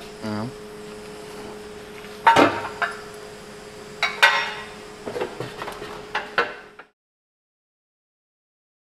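Metal clanks and clinks of tools and bolts as a transmission crossmember is refitted under a car, a few separate knocks over a steady low hum. The sound cuts off abruptly about seven seconds in.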